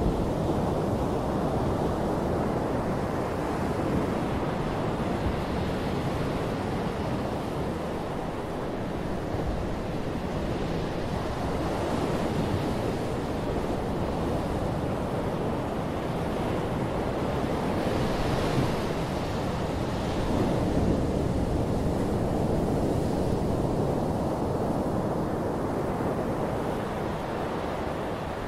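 Small waves breaking and washing up a flat sandy beach: a steady surf hiss that swells and eases every few seconds as each wave comes in.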